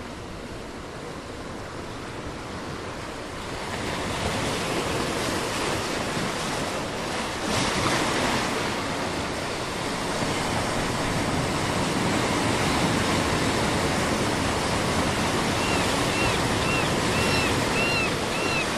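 Ocean surf: waves rolling and breaking on a shore, swelling louder about four seconds in and cresting with a bigger break near eight seconds. Near the end a bird calls in a quick run of short chirps.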